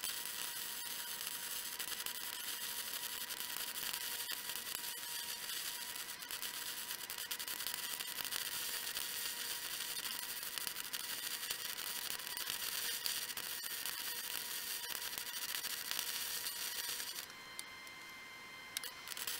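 Stick (shielded metal arc) welding arc: a steady crackling hiss as the electrode burns along a steel joint, which stops suddenly about 17 seconds in when the arc is broken.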